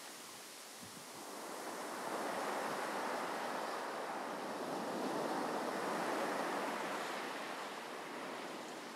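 Ocean surf washing onto a beach, a steady rush that swells about two seconds in and eases off toward the end.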